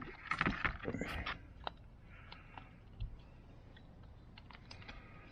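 A short burst of gritty scraping and clicks in the first second and a half, then scattered light clicks: a makeshift tool working a stuck brass jet out of a small-engine carburetor.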